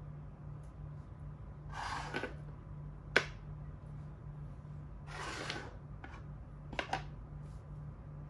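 Plastic makruk (Thai chess) pieces moved on the board, twice: a brief rubbing as each piece is slid or picked up, then sharp clicks as it is set down, the loudest click about three seconds in and a double click near the end. A steady low hum runs underneath.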